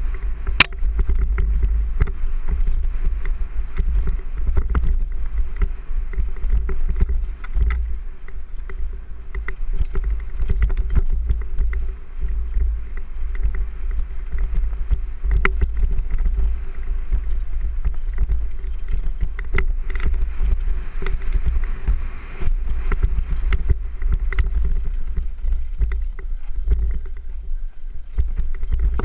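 Wind rumbling on a GoPro's microphone during a fast mountain-bike descent on a dirt trail, with the bike's frame and parts rattling and clicking over rough ground. A faint steady hum runs underneath.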